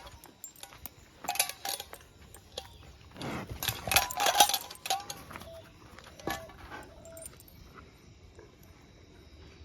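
Metallic jingling and clinking, with a few sharp clicks and a louder rattle about three to five seconds in.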